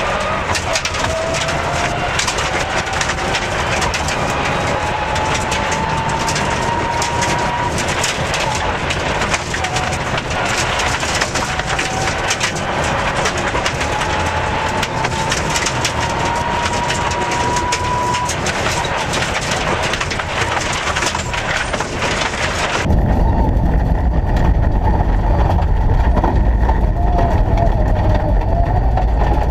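Mitsubishi Lancer Evo rally car at speed on a gravel stage. The drivetrain whine climbs slowly in pitch and dense crackling comes from stones and gravel hitting the underbody and wheel arches. About 23 s in, the sound turns to a heavy, muffled low rumble of the same car.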